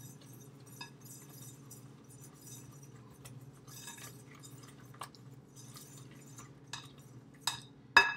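Flour being sifted by hand through a sieve into a glass mixing bowl: a soft scratchy rustle with scattered clinks against the glass, the sharpest one near the end.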